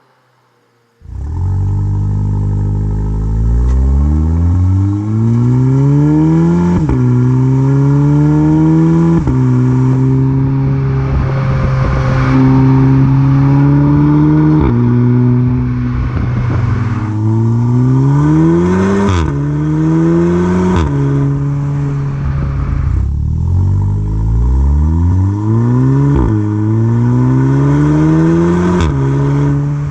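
MK7 Volkswagen Golf R's turbocharged 2.0-litre four-cylinder, through a valveless AWE Track exhaust, accelerating. The engine note climbs in pitch and drops sharply at each upshift, over several gear changes, with short stretches of steady running between pulls. The sound starts abruptly about a second in.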